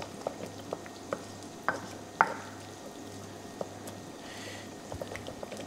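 Onion frying in oil in a pan, faintly sizzling, while a utensil stirs it and gives scattered light clicks against the pan. The onion is almost completely softened. A low steady hum runs underneath.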